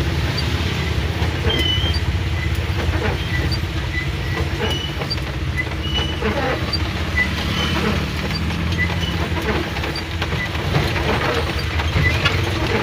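Cabin sound of a 1970s Mitsubishi Colt driving in rain: the engine and road make a steady low drone under an even hiss of rain on the body and wet road, with scattered light clicks. Faint high chirps repeat about twice a second.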